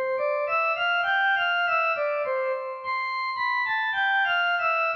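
Casio CDP-S360 digital piano sounding its "Chap1Org" chapel pipe organ preset: a single-note melody in the upper-middle range, steady sustained organ tones stepping up and down about three notes a second.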